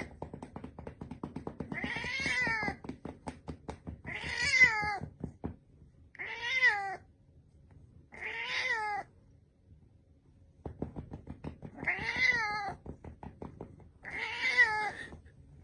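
A domestic cat meowing six times, each meow drawn out and falling in pitch, with a longer pause about halfway through. Runs of quick clicks or taps sound between the meows.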